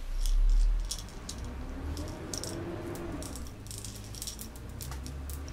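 Small plastic airsoft BBs clicking and rattling in irregular little ticks as they are handled, with a dull low bump in the first second.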